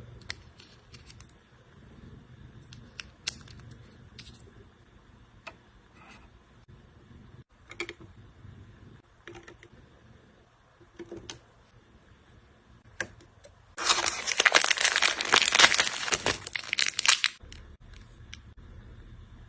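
Plastic packaging being handled and unwrapped, with scattered small clicks and rustles, then about three seconds of loud crinkling and tearing a little before the end.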